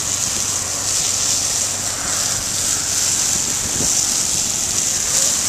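Hydroseed mulch slurry jetting from a hose nozzle in a steady, loud hiss, with a faint low hum underneath.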